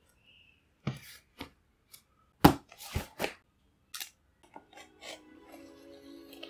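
A cardboard shipping box set down and handled on a wooden tabletop, with a few sharp knocks, the loudest about two and a half seconds in, and short scraping strokes of a small box cutter along the packing tape. Soft background music comes in about four and a half seconds in.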